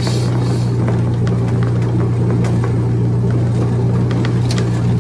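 Engine of the vehicle being ridden, running at a steady speed with a constant low drone, with scattered light ticks and rattles on top.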